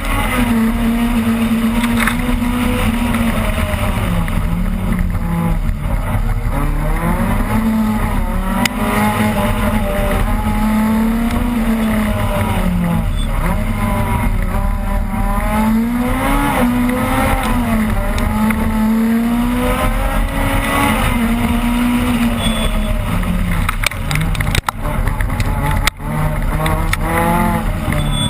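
Opel Kadett rally car's engine heard from inside the cabin at full load, its pitch climbing and dropping again and again as it revs through the gears. Two brief sharp cuts in the sound come near the end.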